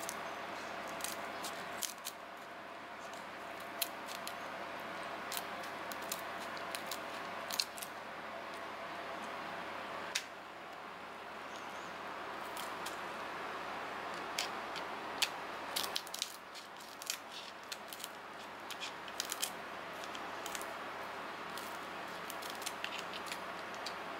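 Scissors snipping along the shell of a mantis shrimp: irregular sharp clicks and crunches as the blades cut through the hard segments, over a steady background hum.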